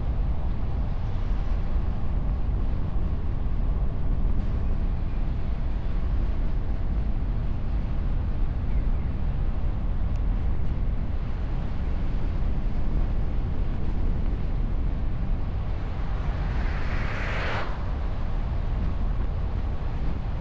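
Steady low rumble of wind and road noise on a bonnet-mounted camera microphone while a car drives along. Near the end a whoosh swells for about a second and a half, then cuts off sharply.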